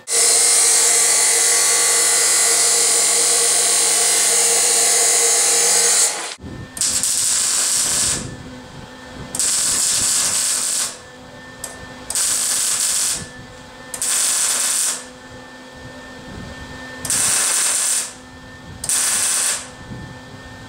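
An electric power tool runs steadily for about six seconds, cutting scrap metal, then stops abruptly. Short crackling bursts from a welder follow, each lasting about a second, repeating with brief pauses as the piece is tack-welded.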